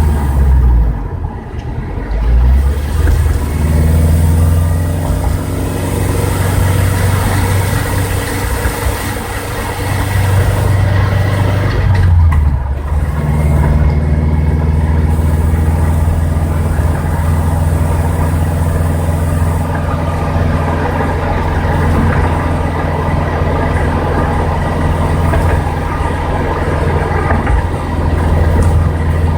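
Scion FR-S's 2.0-litre flat-four engine and drivetrain running on the move, a steady engine note with a brief break about twelve seconds in. This is the grinding noise heard on deceleration, which the owner links to a newly installed Exedy Stage 2 clutch.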